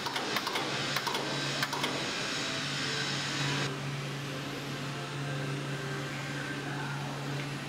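Steady low mechanical hum, with light metallic clicks and taps in the first two seconds as the steel Zacklift parts and pivot pin are handled.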